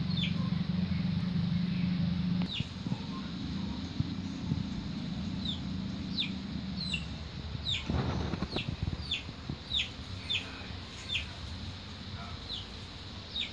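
A small bird chirping: short, high, falling chirps, scattered and irregular, coming most often through the middle of the stretch. Under them a low steady hum drops away about two and a half seconds in, and a brief rustling noise comes about eight seconds in.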